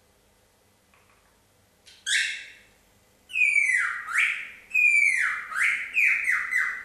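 Cockatiel giving a short call, then a run of loud whistled calls that swoop down in pitch, coming faster as short falling notes near the end.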